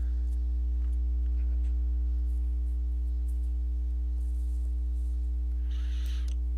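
Steady low electrical hum with a few faint steady tones above it, from the recording setup. There is a brief hiss about six seconds in.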